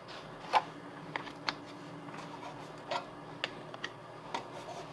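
Handling clicks and knocks from a handheld battery load tester and its clamp leads being picked up and moved about on a workbench, about half a dozen irregular taps, the sharpest about half a second in. A faint steady hum runs underneath.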